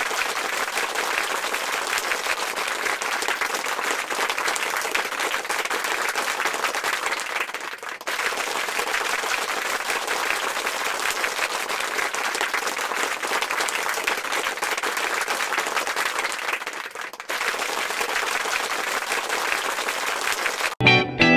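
Crowd applauding steadily, a dense patter of many hands clapping, dipping briefly twice and cutting off suddenly near the end.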